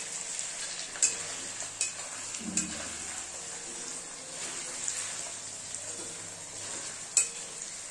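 Paneer cubes sizzling steadily as they shallow-fry in ghee in a kadai. A metal spatula clinks against the pan a few times as they are stirred.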